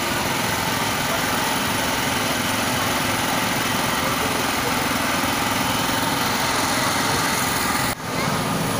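A small engine running steadily at an even idle, with a brief dropout near the end.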